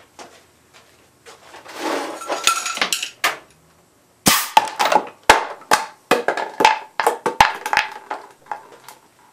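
A Crosman .22 break-action air rifle fires a pellet through a plastic soda bottle pressurized to about 75 psi. A single sharp crack comes about four seconds in, then a quick string of knocks and clinks as the punctured bottle is knocked over and clatters about. Before the shot there are a couple of seconds of rustling and clicking.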